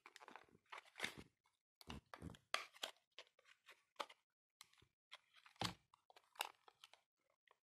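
Faint handling noise of small cardboard cosmetic boxes being moved and picked up on a table: scattered light taps, clicks and rustles.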